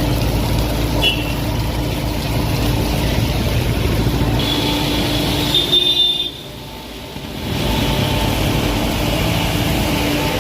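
Road traffic: vehicle engines running with a steady low rumble, a brief high squeal about five seconds in, and a short drop in the noise about six seconds in before it returns.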